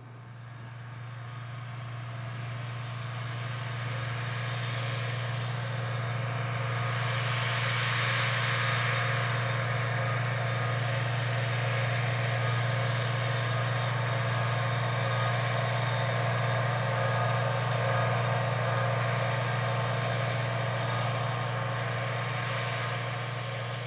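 International Harvester 966 tractor's six-cylinder D414 diesel engine running at a steady speed while pulling a planter through a field. It grows louder over the first eight seconds or so, holds steady, then eases slightly near the end.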